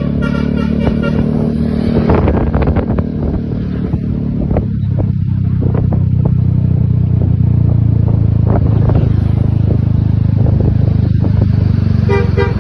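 A large bus diesel engine running loud and close, a steady low drone. Telolet horn tones are fading out at the very start and sound again just before the end.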